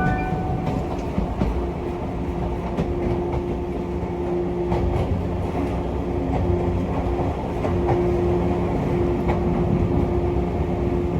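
Inside a 185-series electric train car running at speed: a steady rumble with a low, even hum and faint scattered clicks from the wheels over the rails.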